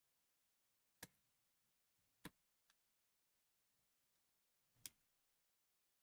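Near silence with four faint, sharp clicks and taps spread over the few seconds, the loudest near the end: small plastic model parts being handled and set down while windows are peeled off their backing and fitted.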